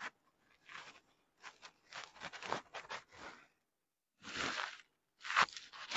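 Embroidered mekhela chador cloth rustling and swishing as it is handled and folded close to the microphone, in a string of short bursts.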